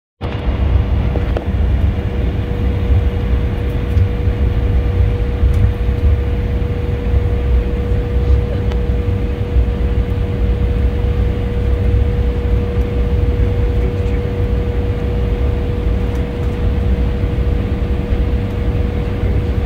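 Jet airliner taxiing, heard from inside the passenger cabin: a steady low rumble of engines at idle and rolling wheels, with a constant steady whine over it.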